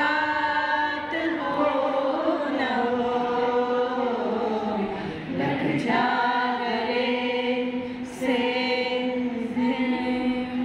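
Unaccompanied singing of a song, with long notes held and sliding from one pitch to the next.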